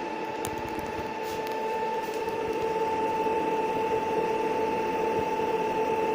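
Holographic 3D LED fan spinning: a steady motor whine with several fixed tones over a whirring hiss, growing a little louder about two seconds in.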